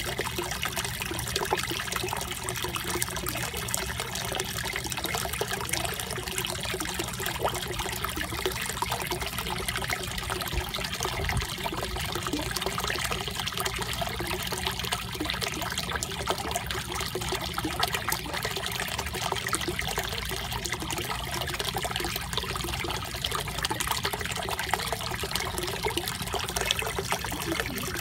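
Steady trickling and bubbling of water in a koi pond, churned by the pump outlet at the surface.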